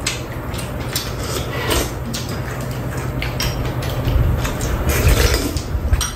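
Metal spoons and chopsticks clicking and scraping against bowls as two people eat, with a steady low hum underneath.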